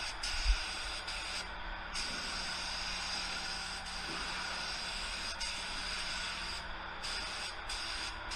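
Gravity-feed paint spray gun hissing steadily as compressed air atomises paint onto a car door, cutting out briefly twice. A single low bump about half a second in.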